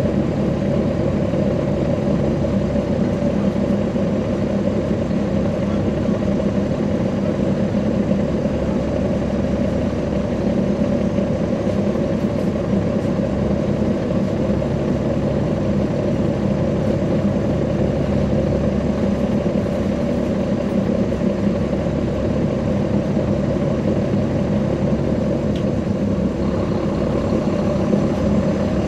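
Caterpillar C13 ACERT diesel engine of a NABI 40-SFW transit bus idling steadily, heard from on board the bus.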